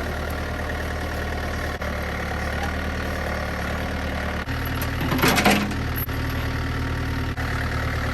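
Engine of a small tractor-type loader running steadily while it carries a heavy load, its pitch shifting slightly about four and a half seconds in, with a brief louder noise about five seconds in.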